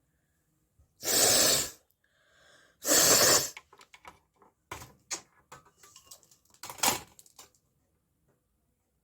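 A person forcing air out hard through the nose in two loud bursts about two seconds apart, then a run of shorter, softer nasal bursts with one louder one near the end.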